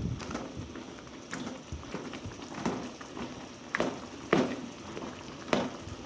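Spatula stirring and scraping a pan of spice paste and tomatoes frying in oil, with a low sizzle and irregular knocks of the spatula against the pan about once a second.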